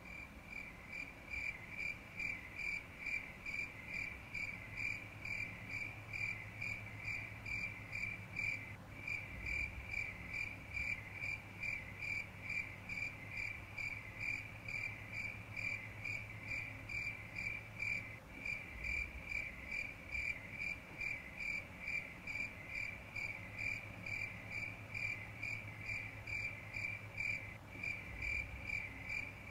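Insect chirping in a steady rhythm, one high pitch repeating a few times a second, with a short break about every nine seconds. A low steady hum runs underneath.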